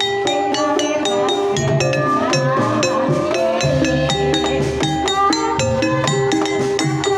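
Banyumasan gamelan playing a tayub gending: struck metallophone and mallet instruments ring out quick interlocking notes over steady kendang drum strokes. A sinden's sung line weaves through the middle.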